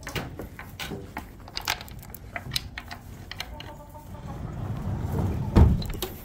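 Rustling and footsteps in straw on a barn floor, with scattered clicks and, now and then, a soft hen cluck. There is a loud thump near the end as the phone is swung round.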